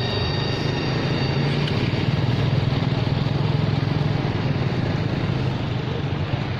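Road traffic with motorcycles passing, a steady low engine drone.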